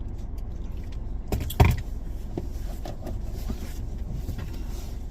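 Steady low rumble of a car heard from inside the cabin, with one loud, deep thump about a second and a half in.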